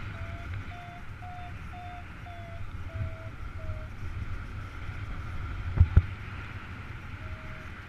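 Paragliding variometer beeping its climb tone, about two short beeps a second, its pitch rising a little and then falling, over a steady rush of wind on the microphone: the glider is climbing in rising air. The beeps stop about four seconds in, two sharp knocks come just before six seconds, and the beeping resumes near the end.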